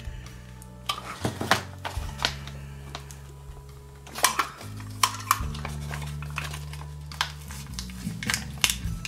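Sharp clicks and short crinkles from a thin glitter foil sheet being worked loose from a craft punch it has jammed in, the loudest clicks a little past the middle. Background music with slow sustained chords runs underneath.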